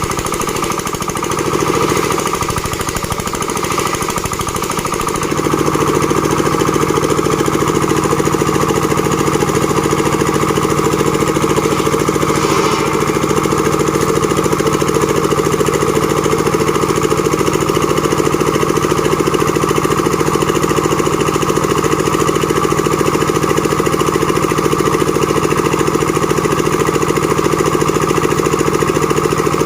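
Engine-driven board-making machine (a sawmill for cutting planks) running loudly; about five seconds in, its rough, uneven running settles into a steady, even drone.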